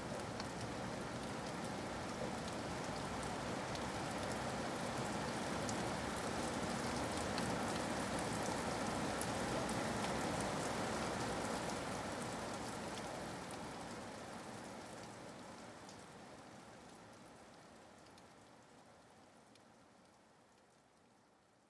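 Steady rain falling, an even hiss with scattered ticks of drops, fading out gradually over the last ten seconds or so.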